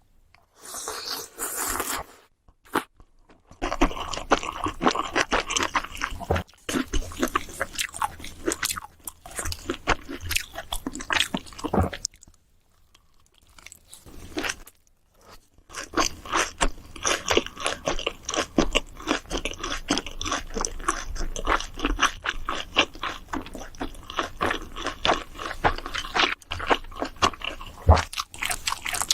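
Close-miked chewing of crunchy food: a rapid run of wet crunches and bites, broken by a few short pauses and one longer pause about halfway through.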